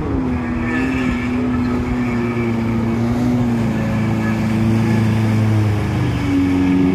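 Jet ski engine running steadily at speed, growing louder as it approaches and passes close by, its pitch shifting near the end.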